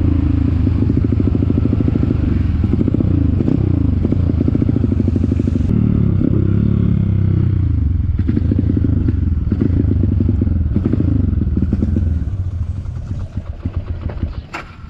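Trail motorcycle engine running under way, its pitch rising and falling with throttle and gear changes. About twelve seconds in it eases off to a quieter low idle as the bike slows, with a couple of sharp clicks near the end.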